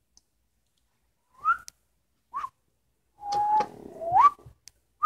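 Wham-O blow marker being blown into, giving a series of short whistles, most sliding upward in pitch and one held steady for about half a second, with a rush of breath through the marker.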